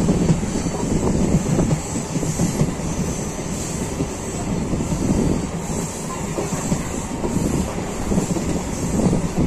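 Indian Railways passenger coach running at speed around a long curve: a steady rumble of wheels on rail with irregular clatter from the track, heard from the open doorway.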